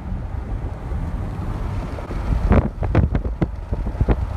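Steady low road rumble of a moving vehicle. About halfway through, it gives way to wind buffeting the microphone in irregular gusts and pops.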